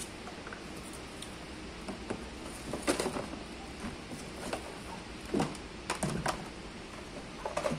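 Unpacking a children's ride-on electric car from a cardboard box: plastic wrapping and foam rustling as a plastic wheel and body parts are lifted out, with a few sharp knocks of the parts against each other and the box, the loudest about three seconds in and again between five and six and a half seconds.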